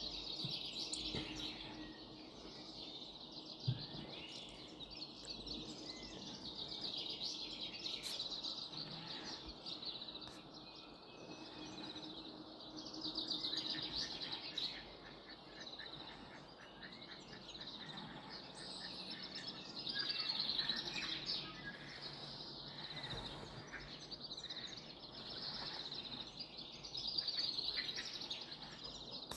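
Birds singing and chirping, with quick trills coming and going, over the steady rush of a creek running through bush.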